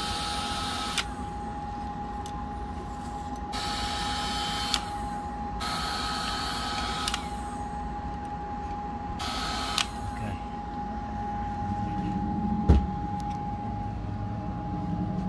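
Ryobi battery-powered cordless heat gun blowing on the heat-shrink of crimped wire connectors, run in four short bursts of hiss and whine that each end with a click, over a steady whine. A single thump about two-thirds of the way in.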